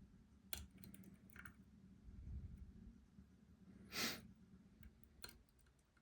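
Faint, sparse clicks of lock picking tools working the pins of a Robur 2391 lock, with a short breathy hiss about four seconds in.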